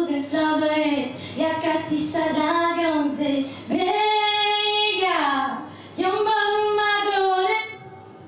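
A young woman singing solo and unaccompanied into a handheld microphone, in separate phrases. Midway she holds one long steady note that slides down as it ends.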